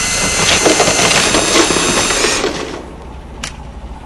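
DeWalt power drill boring into a concrete wall, a loud grinding rattle that drops away about two and a half seconds in.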